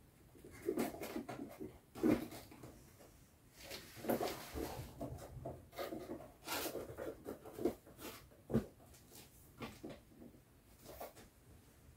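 Folded plastic sheeting being handled and pressed into a cardboard box: irregular rustling and crinkling with a few sharper knocks.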